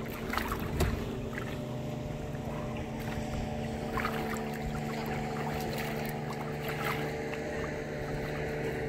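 Boat engine idling steadily, with occasional splashes of water at the hull as a large fish is held alongside.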